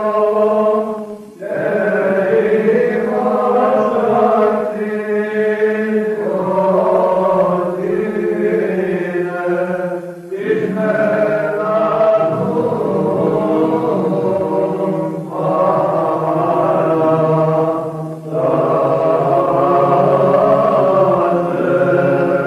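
Men's voices singing Byzantine chant, a moving melody over a low held drone note (the ison). The singing breaks off briefly for breath about a second in, about ten seconds in and about eighteen seconds in, and the drone note shifts lower after the second break.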